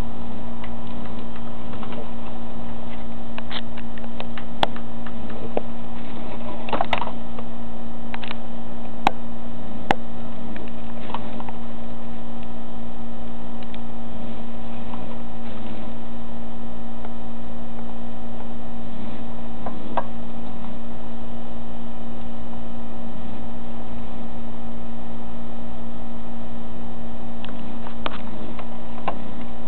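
Steady electrical hum with a buzz of evenly spaced overtones, with scattered light clicks and ticks over it, a cluster of them in the first third and a few more near the end.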